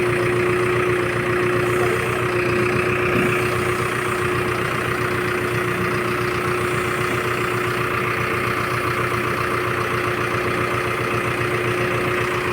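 Manitou backhoe loader's diesel engine running steadily at a constant pitch, with a steady hum-like tone over the engine drone.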